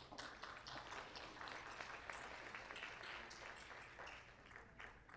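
Faint audience applause, many hands clapping, building up quickly and thinning out near the end.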